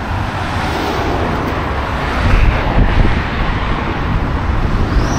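Steady road traffic noise with wind on the microphone, swelling for about a second midway as a vehicle passes close by.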